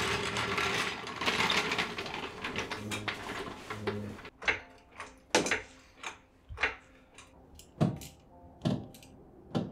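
Hand tools working on a car: a few seconds of rapid clicking and rattling, then a string of single metallic clinks and knocks.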